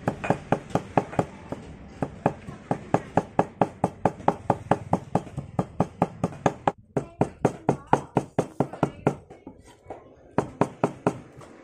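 Steel cleaver chopping rapidly on a wooden chopping block, mincing food into a wet paste, about five chops a second. The chopping breaks off briefly about seven seconds in and again near the end.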